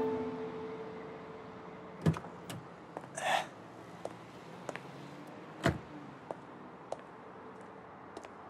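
Music fading out, then a few scattered light clicks and knocks over a quiet background, with a short rustling burst about three seconds in.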